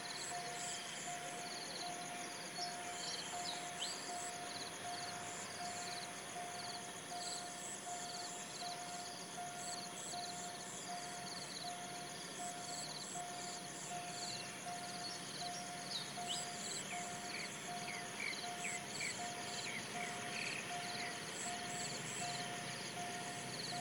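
Insects chirping in the grass in a steady, pulsing rhythm of about one to two beats a second, with short bird chirps in the second half.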